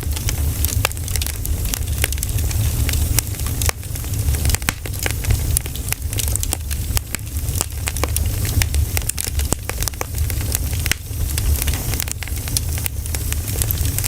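Pine cones burning in a campfire, crackling with many irregular sharp pops over a steady low rumble.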